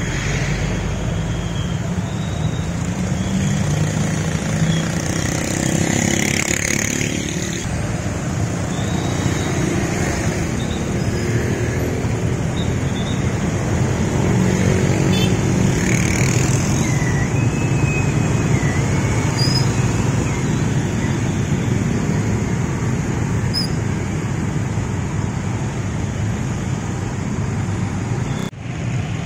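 Dense street traffic in a jam: many small motorcycle engines and cars running and moving off, with tyres on a wet road. It is a steady, loud wash of traffic that drops out briefly near the end.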